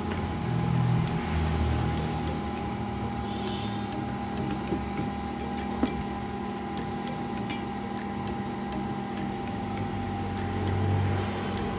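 Small 220-volt square AC cooling fan running with a steady hum while the incubator heats. A low rumble swells about a second in and again near the end.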